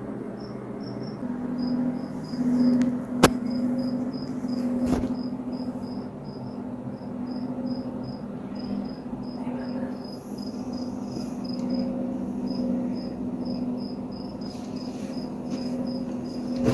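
Cricket chirping steadily, short high-pitched chirps at about three to four a second, over a low steady hum.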